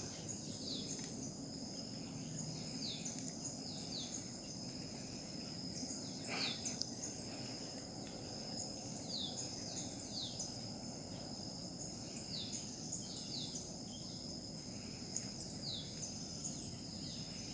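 Insects trilling in a steady high chorus, with short, high, downward-sliding chirps repeating every second or so over a low, steady rush.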